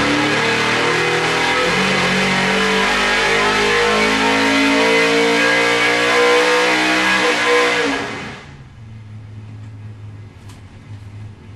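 427 cubic-inch small-block Chevrolet V8 on an engine dyno, pulling at full throttle on a 300-shot of nitrous, its pitch rising steadily toward about 7,000 rpm. About eight seconds in the pull ends and it drops abruptly to a low idle, heard through the dyno cell's window.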